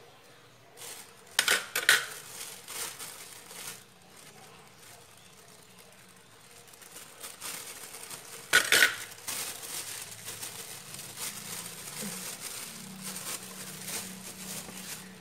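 Thin plastic food bag crinkling and rustling as a hand inside it handles and presses banana pieces, with a few sharp clacks about one and a half seconds and eight and a half seconds in.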